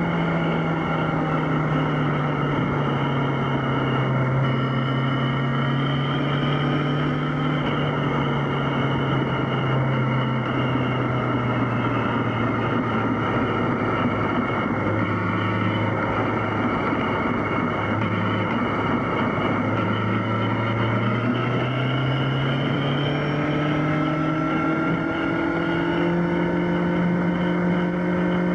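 Yamaha XJ6's inline-four engine running on the move. Its pitch falls slowly as the revs drop through the middle, then climbs again over the last third as it pulls back up.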